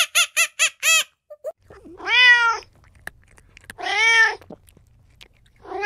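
A domestic cat meowing three times, each meow a drawn-out call of about half a second that rises and then falls, spaced nearly two seconds apart. In the first second, a fast run of short, high squeaks dies away.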